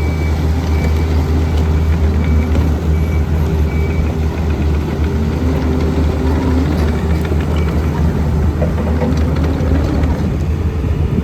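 Takeuchi TB145 compact excavator's diesel engine running steadily, with a few brief high tones from the machine.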